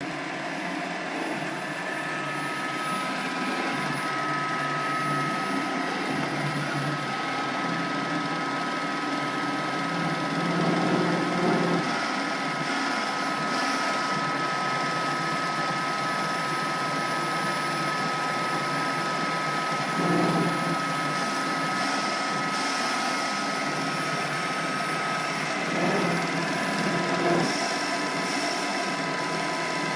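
Hercus PC200 benchtop CNC lathe running: a steady motor whine with a couple of held high tones, and a few brief louder surges as the machine works.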